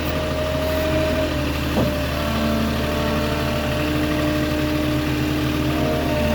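Moffett truck-mounted forklift engine running steadily, with a brief click about two seconds in.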